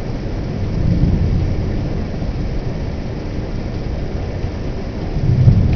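Thunderstorm: heavy rain pouring steadily, with low rumbles of thunder swelling about a second in and again near the end.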